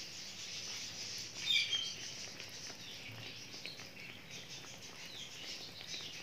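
Hot ghee sizzling and crackling steadily in a stainless steel frying pan as a batter-coated naan fries in it, with a brief chirp about a second and a half in.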